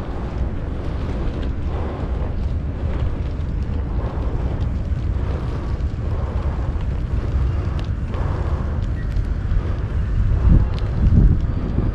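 Wind buffeting the microphone in a steady low rumble, with a few faint clicks, growing louder and gustier near the end.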